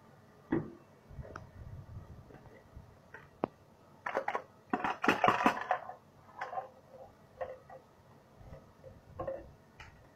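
Irregular knocks and clicks of a container being handled, with a busier burst of clattering and rustling about four to six seconds in.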